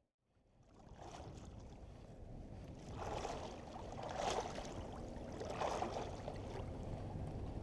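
Water swishing and sloshing around legs wading through a shallow river, a swell of splashing every second or so, over a steady low rumble of wind on the microphone.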